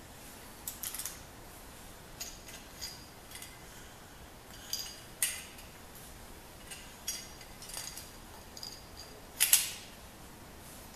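Scattered small metallic clicks and clinks of a door lockset's latch and knob parts being handled and fitted together, with one louder click near the end.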